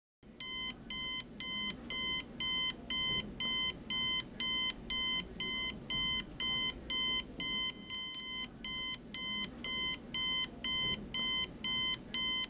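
Electronic alarm clock beeping: a steady run of identical high-pitched beeps, about two a second.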